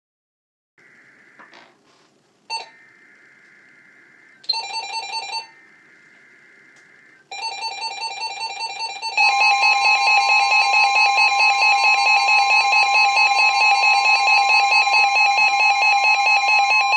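Weather radio alert: faint buzzing data bursts, then from about seven seconds an alert tone that gets louder about two seconds later and holds steady as two pitches at once. This is the attention signal that comes before a warning is read out.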